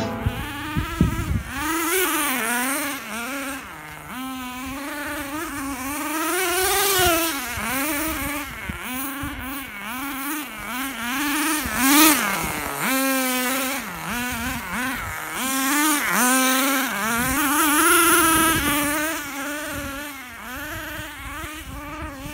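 Small two-stroke petrol engine of an RC car revving up and down as the car is driven, a high buzzing note that rises and falls in pitch over and over, roughly once a second.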